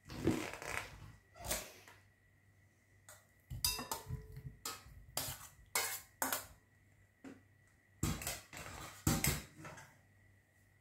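Metal spoon and the stainless-steel steamer basket of a Moulinex Cookeo clinking, scraping and knocking against each other and a glass bowl as cooked potato and carrot chunks are scooped out. The clinks and knocks come in irregular runs with short pauses between them.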